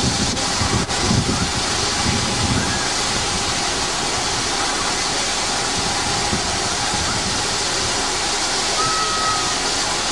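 A1 Class 'Terrier' 0-6-0T steam tank locomotive No.672 'Fenchurch' drifting in with steam hissing. There are a few soft chuffs in the first couple of seconds, then a steady hiss.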